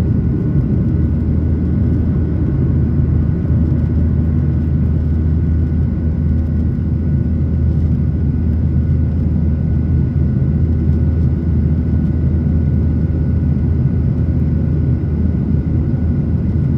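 Steady low rumble of a jet airliner's engines and rushing air, heard inside the passenger cabin in flight, with a faint steady whine above it.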